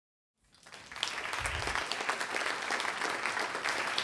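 Audience applauding, swelling in about half a second in and holding steady as dense clapping. A short low thud sounds about one and a half seconds in.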